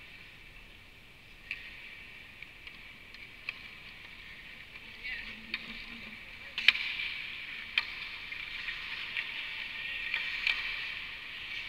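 Ice hockey skate blades hissing and scraping on the rink ice, with sharp clacks of sticks and puck scattered through it. The scraping swells as a skater comes close about six seconds in, and the loudest clack falls just after.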